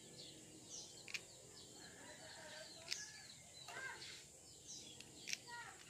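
Faint outdoor birdsong: small birds chirping in short, quick, varied calls. Three sharp light clicks stand out about two seconds apart.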